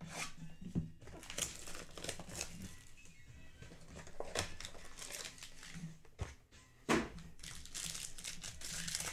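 A sealed foil trading card pack crinkling in the hands and being torn open, with a sharp knock about seven seconds in.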